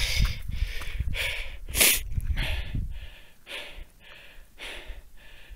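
A hiker's heavy, rapid breathing, about two breaths a second, out of breath from climbing a steep snowfield; the breaths grow fainter about halfway through. Low rumbling on the microphone runs under the first few seconds.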